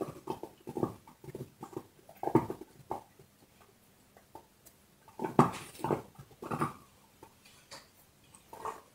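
Dog chewing a bone: irregular crunches and cracks of the teeth on bone, a run of them in the first three seconds, a short pause, then another run of louder crunches about five seconds in.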